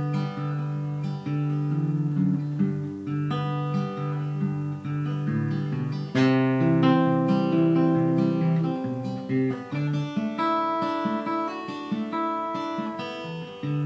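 Solo acoustic guitar playing an instrumental break, strummed chords in G, C and D changing every few seconds, with quicker picked notes near the end.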